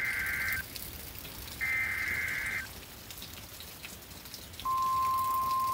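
NOAA Weather Radio alert signal: raspy digital data bursts about a second long each, the SAME header that encodes the warning. A steady, high-pitched warning alarm tone starts near the end, marking the start of a new weather warning broadcast.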